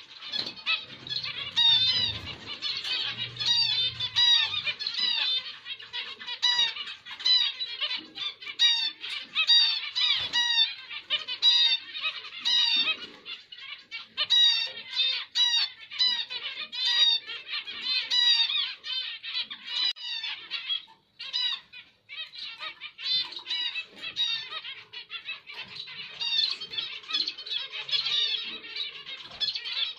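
Zebra finches calling: a dense, continuous run of short, high chirps, many overlapping, with a brief pause a little past two-thirds of the way through.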